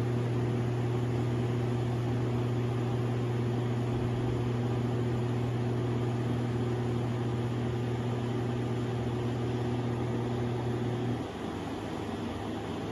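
Air conditioner giving a steady, loud electrical hum over the running fan's air noise; the hum cuts off suddenly about eleven seconds in while the fan keeps going. The owner takes the hum for something trying to activate inside the unit, maybe because it is low on Freon.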